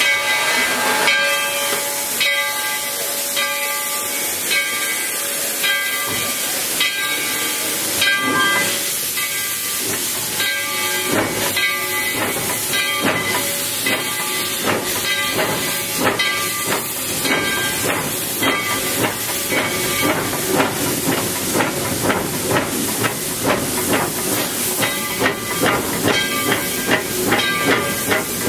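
Tweetsie Railroad No. 12, a 1917 Baldwin 4-6-0 narrow-gauge steam locomotive, heard from its cab: a steady hiss of steam with the engine's exhaust beats, which settle into a regular rhythm of about two a second in the last third as the locomotive works along.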